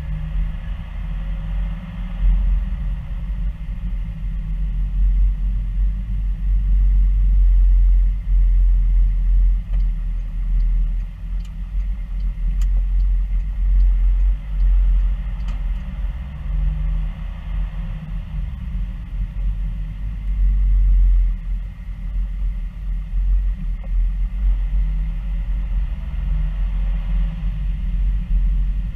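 Car driving slowly, a steady low engine and road rumble heard from inside the cabin.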